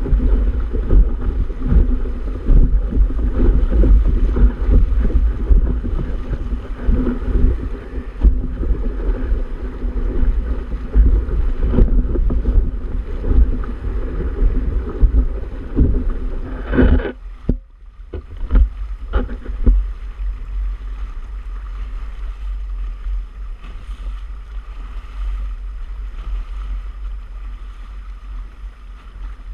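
Wind buffeting the microphone over water rushing and splashing along the hull of a Hobie Tandem Island sailing kayak under sail. The gusty wind rumble is heaviest over the first half, dips briefly a little past halfway, then gives way to a steadier, quieter rush.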